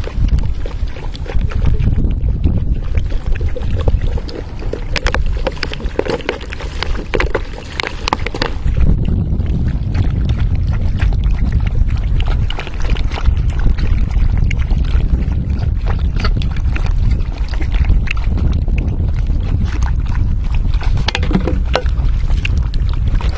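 Wind buffeting the microphone: a loud, low rumble that rises and falls, with scattered light clicks and knocks over it.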